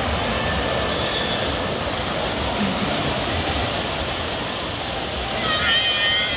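Steady rushing noise of water pouring off water slides into a splash pool.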